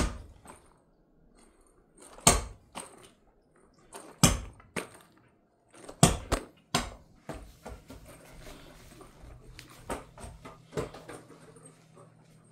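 A series of sharp knocks and thuds a couple of seconds apart, the loudest right at the start and about two, four and six seconds in, then smaller ones. A faint steady hum comes in about halfway.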